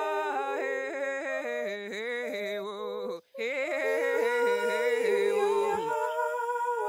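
Wordless vocal music: several layered voices singing and humming held notes, some wavering, over a steady drone, with a sudden brief drop-out about three seconds in.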